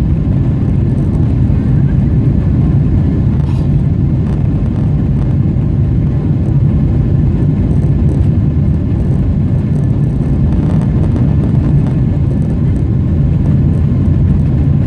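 Steady low drone of engine and airflow noise inside the cabin of a Boeing 777-300ER, the GE90 engines and slipstream heard through the fuselage.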